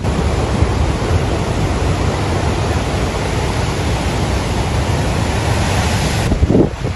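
Steady rushing noise of storm surf and hurricane wind at the shore, cutting off suddenly shortly before the end.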